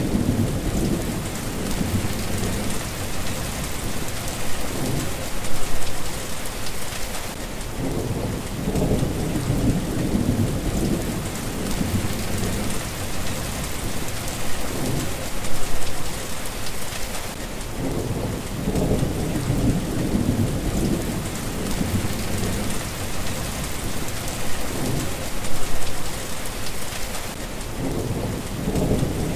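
Steady rain falling, with low rolling thunder that swells and fades about every ten seconds.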